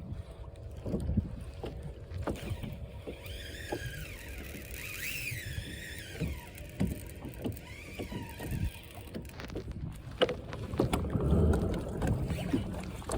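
Water sloshing and knocking against a small boat's hull, with a steady low rumble, scattered knocks, and a louder, busier stretch of splashing and knocks near the end. A few high chirping glides sound around the middle.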